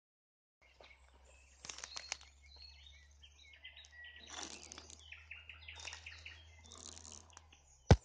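Nightingale singing: a varied run of phrases made of clicks, rapidly repeated notes and short trills, starting about half a second in. A single sharp knock near the end is the loudest sound.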